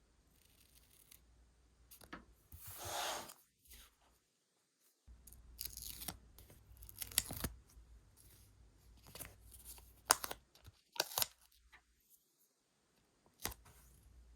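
Paper torn by hand for about a second, followed by scattered short, sharp clicks and snips as stationery and paper pieces are handled.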